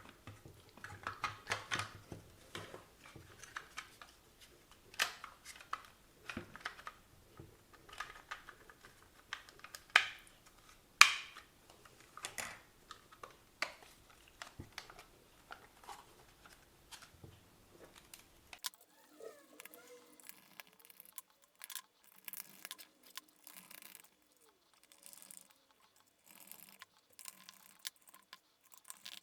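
Plastic clicks, taps and scrapes of a hand-held RC car transmitter being handled and opened up, with a louder snap about 11 seconds in.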